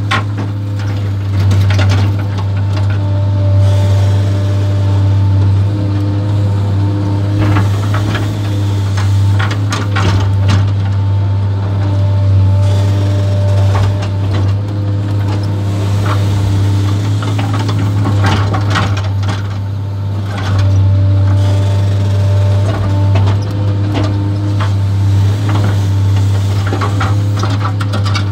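JCB JS 235 HD tracked excavator heard from inside its cab: the diesel engine runs with a steady low hum, and the hydraulics add whining tones that come and go as the boom and bucket move. Scraping knocks from the bucket working the sand break in now and then.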